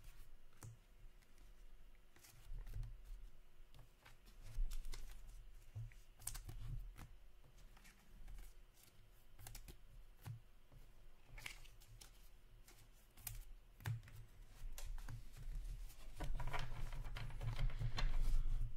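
Hockey trading cards and their plastic pack wrappers being handled: scattered small clicks and rustles as cards are flicked through and laid down. The handling noise becomes denser and louder near the end.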